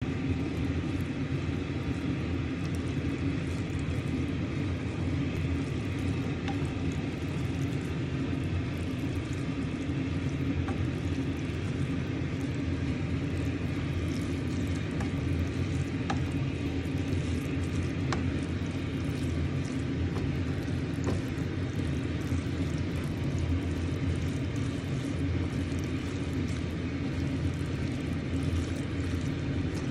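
A steady low rumble, with faint scattered clicks and scrapes from a wooden spatula tossing spaghetti in a nonstick frying pan.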